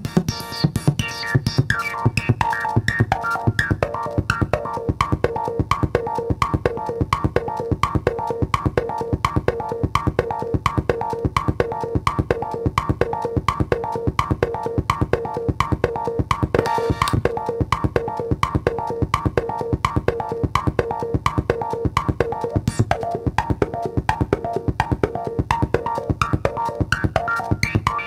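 Modular synthesizer patch run through a homemade Steiner-Parker voltage-controlled filter, playing a fast, steady rhythm of short, drum-like percussive hits with pitched ringing tones. The filter knobs are turned by hand as it plays, and the sound turns briefly brighter about two-thirds of the way through.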